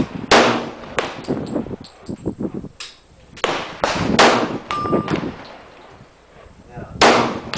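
Glock 22 .40 S&W pistol firing single shots, about four sharp reports a second or more apart, each followed by a short ringing echo.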